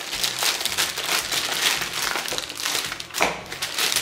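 Plastic delivery mailer bag crinkling and rustling as it is handled, with a sharper, louder crinkle about three seconds in.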